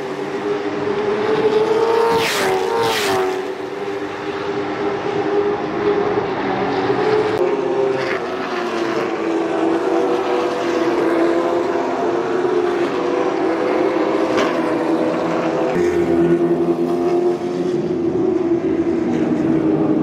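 Several V8 stock cars running laps on an oval track, a continuous engine drone that shifts in pitch as they circle, with cars passing close by a couple of seconds in and again later.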